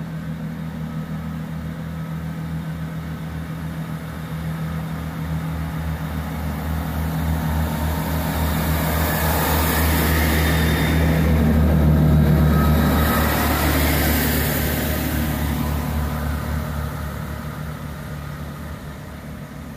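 Networker Turbo diesel multiple unit passing through the station. Its diesel engines give a steady low hum that grows louder as it nears. The engine hum and the hiss of wheels on rail peak about twelve seconds in, then fade as the train moves away.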